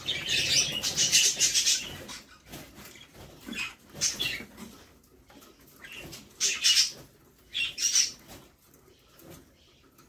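Newly hatched budgerigar chicks making high, buzzy begging cheeps, which they use to ask for food. The cheeps come in several short bursts: the longest lasts about two seconds at the start, and shorter ones follow near the middle and about two-thirds of the way through.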